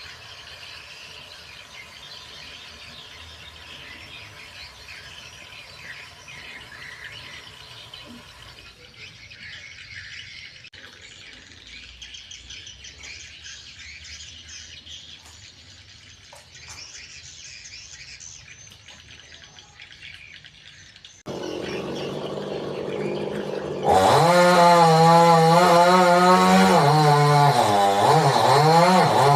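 Birds chirping over quiet outdoor background. Near the end a chainsaw engine comes in loud, its pitch rising and falling as it is revved.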